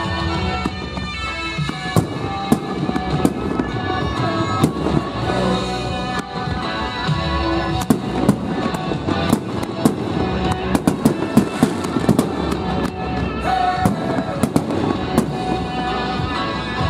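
Aerial fireworks shells bursting and crackling over continuous music, with the bangs coming thick and fast in the second half.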